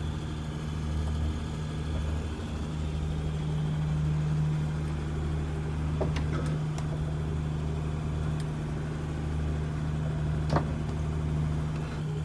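A boat's engine running steadily underway, a low even drone heard from inside the cabin, with a few faint clicks about halfway through and near the end.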